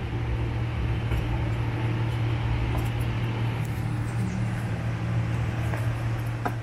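A steady low mechanical hum, with a few light clicks in the second half.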